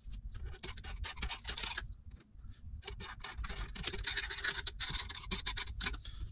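A small tool scratching and scraping inside a BCM AR-15 upper receiver in rapid short strokes as grease is spread over its inside walls. The strokes come in two spells, the second longer.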